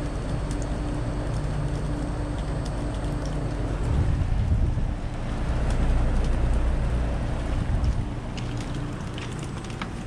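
A 4-ton Trane City Multi ductless heat pump's outdoor unit running in heat mode: a steady compressor hum with a constant low tone under the rushing of its fan, which gets louder and deeper for a few seconds in the middle. Scattered raindrops tick over it.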